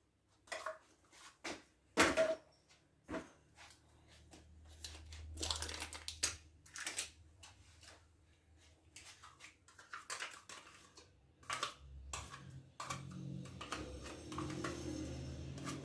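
Irregular clicks, taps and light knocks of a spoon and plastic yogurt pots against a mixing bowl as yogurt is scraped into cake batter.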